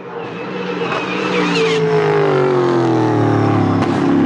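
Chevrolet Camaro LS3 6.2-litre V8 running, growing louder over the first couple of seconds, then dropping steadily in pitch as the revs fall.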